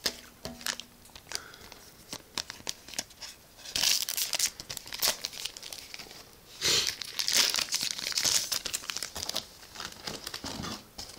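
Foil booster-pack wrapper crinkling and tearing as it is opened by hand, with the loudest crinkling about four seconds in and again from about seven to nine seconds.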